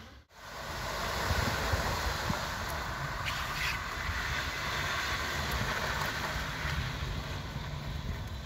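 Wind buffeting the microphone over a steady rushing of floodwater running across a flooded street.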